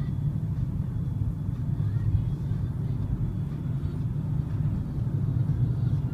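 Steady low rumble of a moving car heard from inside the cabin: engine and road noise while driving in city traffic.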